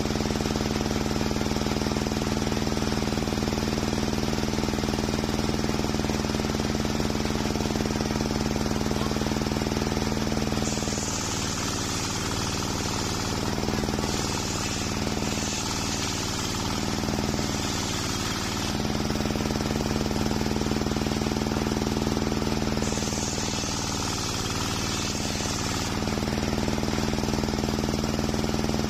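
Homemade table circular saw running with a steady hum, then cutting through a waru (sea hibiscus) log twice: for about eight seconds from roughly a third of the way in, and again for a few seconds near the three-quarter mark. During each cut a high hiss of blade in wood joins in and the saw's hum wavers under load.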